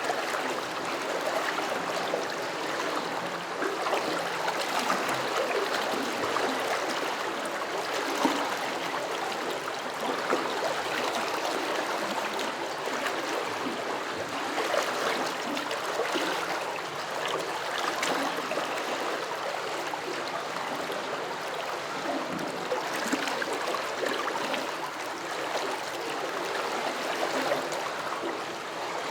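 Shallow stream flowing over stones, a steady rush of water with irregular gurgles and bubbling splashes.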